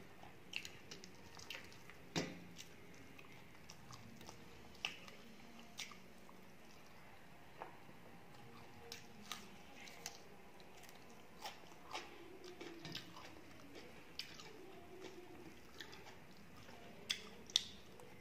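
Close-up eating sounds: chewing, lip smacks and crunchy bites of fried fish and raw onion slices. They come as irregular sharp clicks and crunches. The loudest is about two seconds in, and two come close together near the end.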